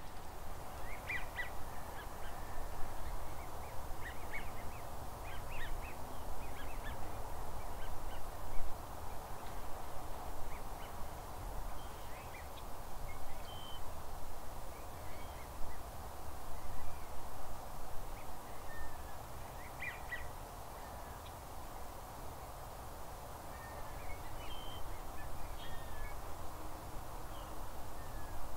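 Geese and ducks calling from a flock: short calls come in scattered clusters over a steady background din of many birds.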